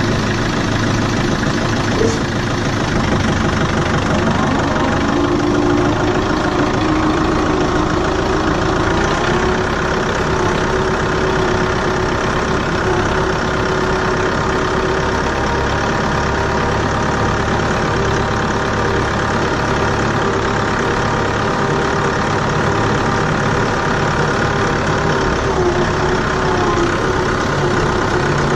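Tractor engine running steadily, freshly started after a hard crank.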